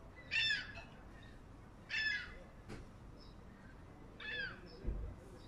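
An animal calling three times, short calls falling in pitch about two seconds apart. A faint click comes in the middle and a dull low thump comes near the end.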